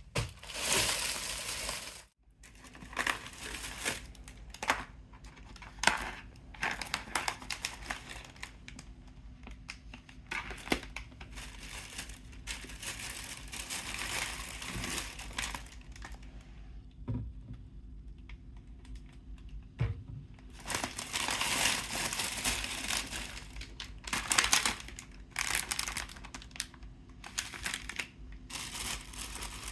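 Plastic snack packaging crinkling as it is handled, in irregular bursts of rustling with a few sharp clicks.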